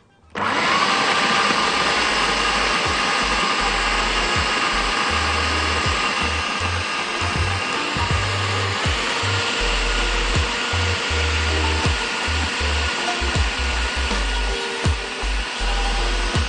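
Electric food processor running steadily, its motor starting about half a second in, chopping basil leaves, almonds, garlic and parmesan into pesto. There is a steady motor whine over the noise of the blades.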